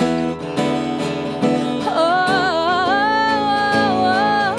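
A woman singing over acoustic guitar: the guitar plays on its own at first, then from about two seconds in she holds one long wordless note that slides up into it.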